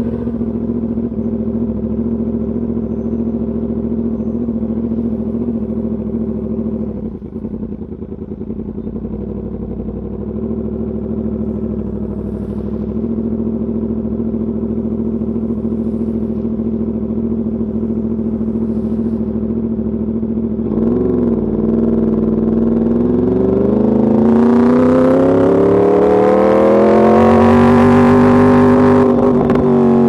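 Yamaha YZF-R1's crossplane inline-four through an Arrow Pro race exhaust, heard from the rider's seat: steady low-rev running for about twenty seconds, then a quick throttle blip. It then revs up through a long acceleration that peaks and eases off near the end.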